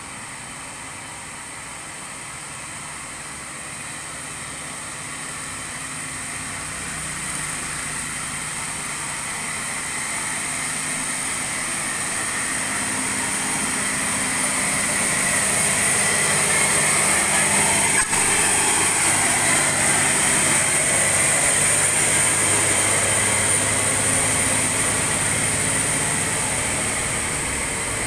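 Loaded Hino bulk cement tanker truck's diesel engine labouring up a hill grade. It grows steadily louder as the truck approaches, is loudest as it passes close by about two-thirds of the way in, then fades as it moves away, with tyre noise at the pass.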